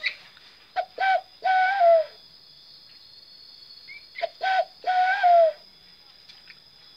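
A dove's cooing imitated by blowing into cupped hands: two phrases about three and a half seconds apart, each two short hoots followed by a longer hoot that wavers and drops at the end.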